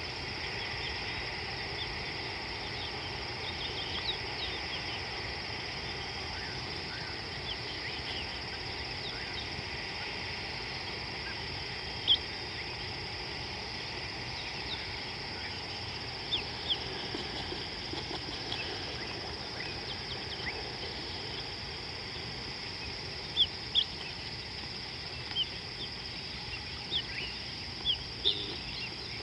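Steady high-pitched insect chorus with short bird chirps scattered through it; a handful of sharper, louder chirps stand out, most of them in the second half.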